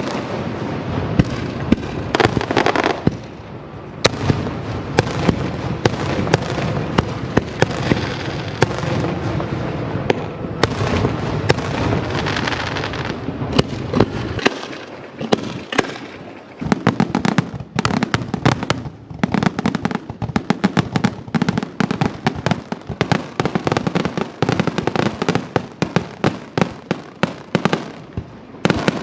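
Fireworks display: a continuous run of bangs and crackling, turning into a rapid barrage of many sharp bangs about halfway through.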